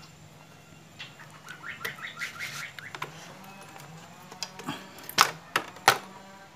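Sharp metallic clicks and knocks of hand tools and parts being handled while the carburetor is taken off a motorcycle engine, the two loudest about five and six seconds in. About two seconds in comes a quick run of short chirps.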